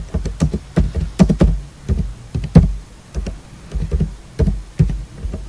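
Computer keyboard keys being typed, irregular clicks about two or three a second, each with a dull knock.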